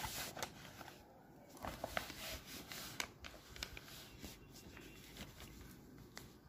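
Faint, scattered short clicks and scratches of a pen writing figures on paper, with the paper and book being handled.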